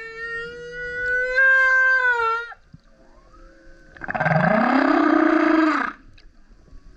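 Male humpback whale singing: a long moaning tone that drifts slowly up in pitch and then drops away after about two and a half seconds. After a short pause comes a louder, rougher call, about four seconds in, that sweeps upward and lasts about two seconds.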